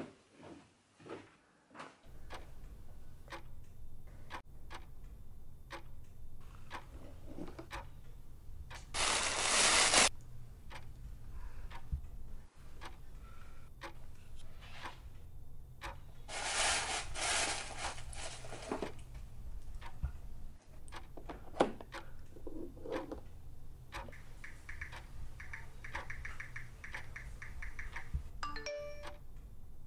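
Background music with a steady low pulse. Over it, two loud rustling passages as a gift box and its contents are handled, then fast, even taps on a phone's keyboard and a few short chime-like message tones near the end.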